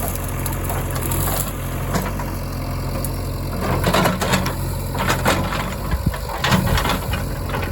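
Diesel engine idling steadily, with a run of clanks and knocks from about three and a half seconds in until near the end.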